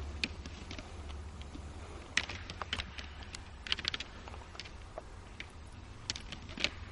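Two fallow deer bucks fighting, their antlers clacking and rattling together in irregular sharp clicks, with the loudest clashes about two seconds in, near four seconds and near the end.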